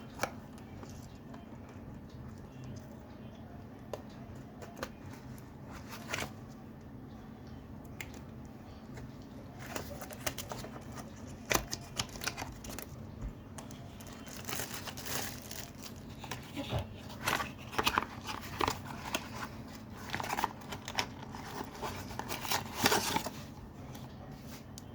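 Packaging of a USB-C charging cable being opened by hand: a few scattered handling clicks at first, then about ten seconds in, a long stretch of crinkling, rustling and tearing as the pack is torn open and the cable is taken out.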